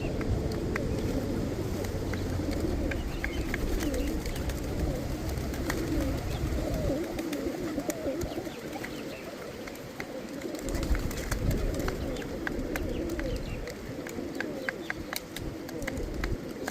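Domestic pigeons cooing, several birds' coos overlapping continuously, with scattered light clicks and a low rumble underneath.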